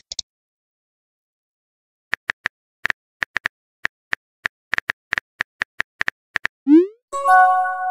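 Phone touch-keyboard key clicks, about twenty quick taps starting about two seconds in, as a text message is typed. Near the end comes a short swoosh rising in pitch as the message is sent, then a chime of several held notes.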